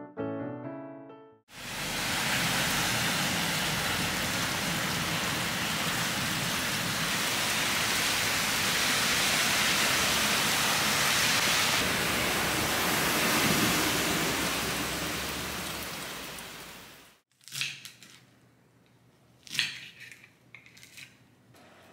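Steady heavy rain, an even hiss, which stops abruptly about 17 seconds in. It is followed by a few sharp taps of a knife cutting through spinach stems on a board.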